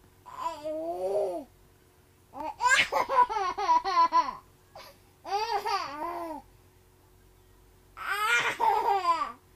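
A baby laughing in four bursts with short pauses between them, the second burst a quick run of laugh pulses.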